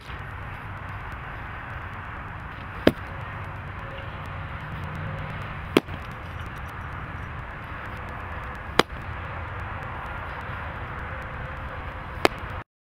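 Baseball popping into a leather catcher's mitt, four sharp pops about three seconds apart over steady outdoor background noise.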